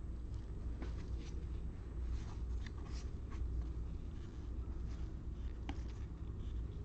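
Faint scrapes and clicks of trading cards being slid and flipped through by hand, over a steady low hum.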